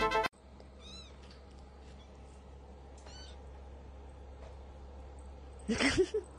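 A kitten mewing faintly twice, each mew a short high call that rises and falls, over a steady low hum. A louder, brief pitched sound comes near the end.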